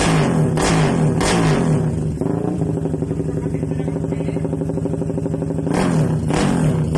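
RS 125 motorcycle engine given a couple of quick throttle blips, then settling to a steady idle, then blipped twice more near the end.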